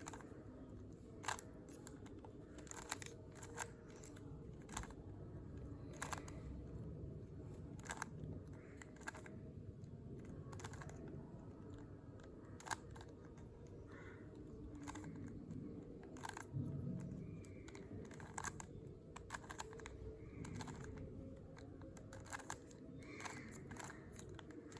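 3x3 Rubik's cube being turned face by face, a string of short, irregularly spaced plastic clicks as the layers snap round, over a faint steady background hum.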